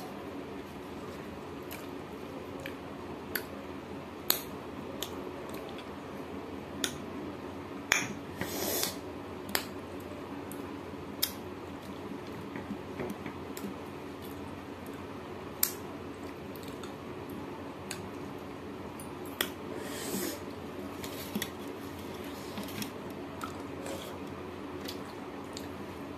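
Close-up eating sounds: sharp wet mouth clicks and smacks while chewing, with a few longer crunchy bursts of crisp papad being bitten, and fingers working rice on a steel plate, over a steady low room hum.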